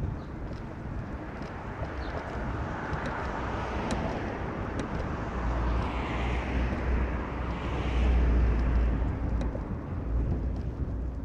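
Car on the move: steady road and wind rumble that swells louder around the middle and eases again near the end.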